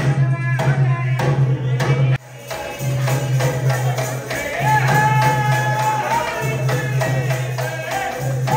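Live Tharu folk music: a double-headed barrel drum and jingling percussion beating a quick, steady rhythm, with men singing over it. The sound drops out briefly about two seconds in and the music resumes.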